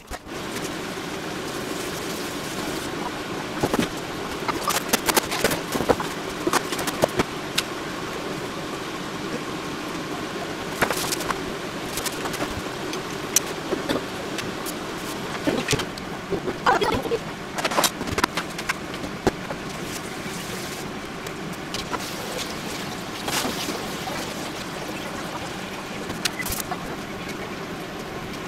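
A steady mechanical hum, with scattered knocks and clicks of things being handled and set down on a wooden counter.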